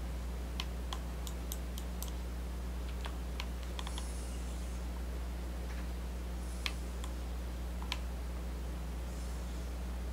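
Computer keyboard keystrokes: a quick run of key clicks in the first couple of seconds, then a few scattered single clicks, over a steady low electrical hum.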